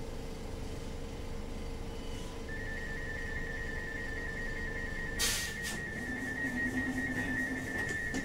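Inside a CAF Urbos 3 tram slowing to a stop. A steady drive whine with a low rumble cuts out about five seconds in, a high thin whistle starts a couple of seconds in and carries on, and there is a short rattle as the drive whine stops.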